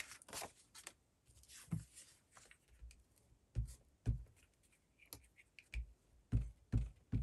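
Paper being handled and folded by hand on a desk: light rustling and scratching with a series of soft thumps, several close together near the end.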